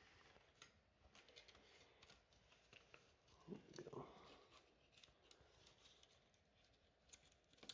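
Near silence with faint, scattered small clicks and taps: a laptop motherboard being pressed and worked into place in the Chromebook's plastic case.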